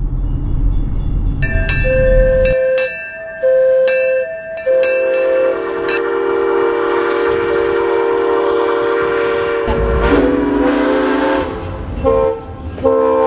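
A string of train horn and whistle blasts. A locomotive air horn sounds several blasts over a low engine rumble while a crossing bell clangs steadily. It runs into a long, breathy steam-locomotive whistle, and more horn blasts come near the end.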